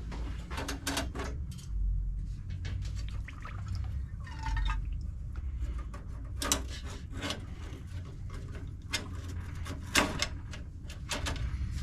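Carburetor parts clinking as they go into an ultrasonic cleaner, with the slosh of the cleaning liquid. There are scattered sharp clicks of metal over a low steady hum.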